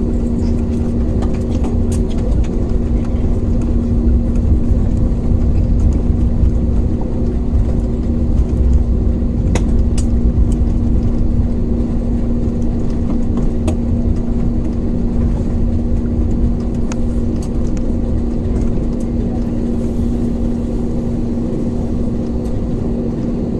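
Airliner cabin noise: a steady engine hum over a low rumble, with a few faint clicks. The rumble eases slightly toward the end.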